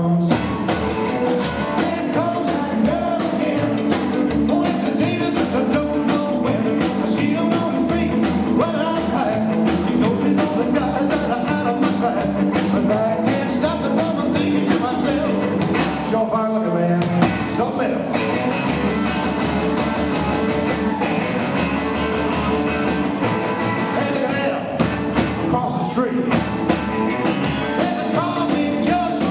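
Live rockabilly band playing an uptempo 1950s-style rock 'n' roll number, with electric guitar, double bass and drums under a male lead vocal.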